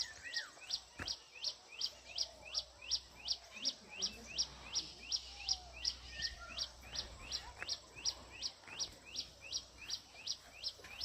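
A bird repeating one sharp, high, falling call over and over at a steady rate of about two and a half calls a second, with fainter calls of other birds behind.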